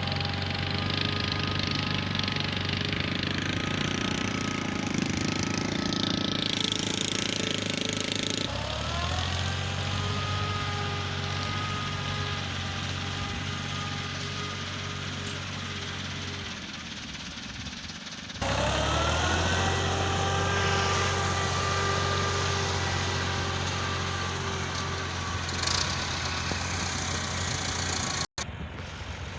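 Heavy diesel construction machinery engine running, its pitch rising as it revs up twice, with abrupt jumps in the sound at those points.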